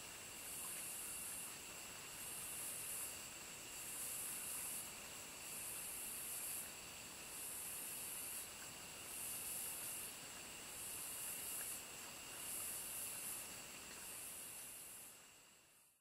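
Cicadas buzzing in high, hissing pulses about a second long, repeating every second and a half or two, over a steady thin high insect drone. Fades out at the end.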